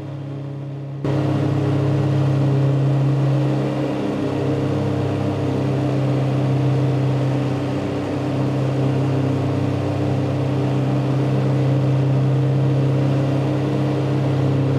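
Tractor engine running steadily while it pulls and powers a 12-foot Woods Turf Batwing mower, a constant low-pitched drone. The level jumps up abruptly about a second in, then holds steady.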